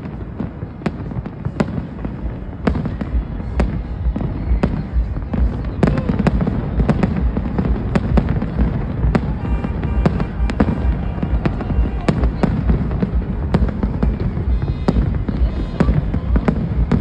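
Aerial fireworks display in a continuous barrage: sharp bangs of bursting shells come irregularly, often more than one a second, over a constant low rumble.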